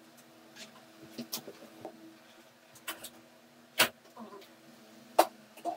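About four sharp clicks from hands handling wires, a 9-volt battery snap clip and a fan motor's copper-wound stator, the loudest a little under four seconds in, over a faint steady hum.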